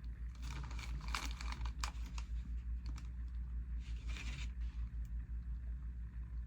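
Rustling and crinkling with a few small clicks, and a longer rustle about four seconds in, over a steady low hum.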